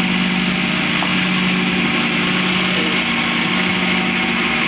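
Cotton candy machine running: its motor spinning the head with a steady hum, over a steady hiss.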